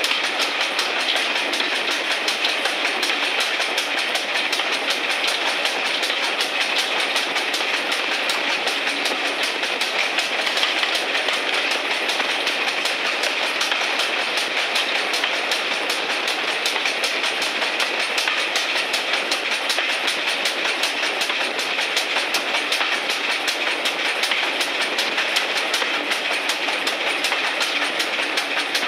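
Steam locomotive 1369 hauling its train at speed, heard from just behind the engine: a fast, even beat mixed with the noise of wheels running on the rails.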